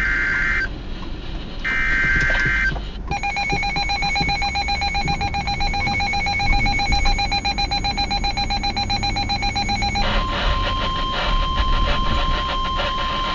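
NOAA Weather Radio receivers sounding an EAS alert for a special marine warning. It opens with two short screeching SAME data bursts about a second apart. At about three seconds a receiver's electronic alarm takes over with fast, warbling beeps. At about ten seconds the steady 1050 Hz weather radio warning tone comes in under continued rapid beeping.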